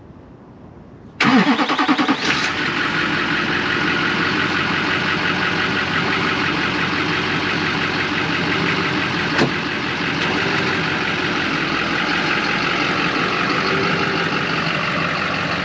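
Duramax diesel pickup engine cold-starting about a second in, catching at once with a brief flare, then settling into a steady idle.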